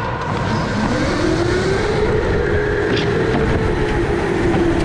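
Electric go-kart motor whining as the kart pulls away. The pitch rises over the first second or so, then holds steady at speed over a low rumble.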